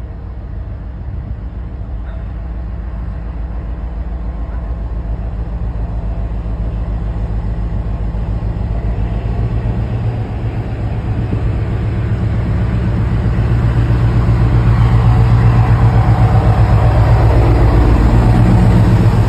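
A Class 60 diesel freight locomotive with its eight-cylinder engine, drawing steadily louder as it approaches and then runs past close by. A deep pulsing engine drone builds through the whole stretch, and wheel and rail noise rises over it in the last few seconds as the locomotive goes by.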